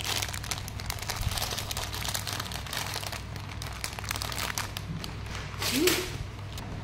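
Clear plastic bag of tiny plastic building bricks crinkling and crackling as it is squeezed and turned in the hands, with a short louder burst near the end.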